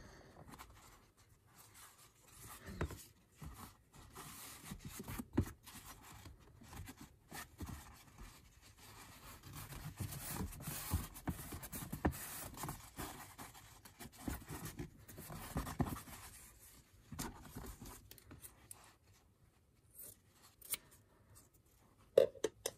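Hands folding and creasing a sheet of pulp nonwoven fabric (cooking sheet) on a tabletop: irregular rustling and scraping of the sheet, busiest in the middle, with a couple of sharp clicks near the end.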